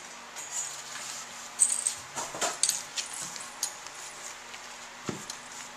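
Rusty wire being wrapped around a stack of paper and leaves clamped between wooden boards: scattered clicks, scrapes and rustles of wire, wood and paper being handled, the sharpest click a little over a second in. A short, low falling sound comes about five seconds in.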